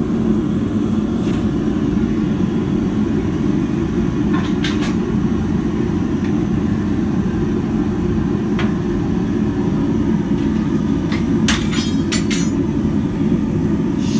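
A forge running with a steady low rushing noise, with a few sharp clicks on top: a pair about five seconds in, another near nine seconds and a quick cluster near the end.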